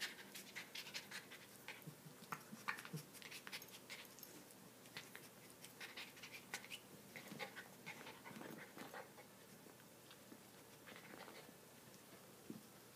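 Pomeranian puppy chewing and gnawing a rope-handled toy football: faint, irregular small clicks and scratches, thinning out near the end.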